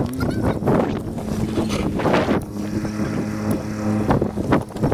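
A utility vehicle's engine idling with a steady hum. Wind buffets the microphone, and there are irregular crunching steps on snow-crusted ice.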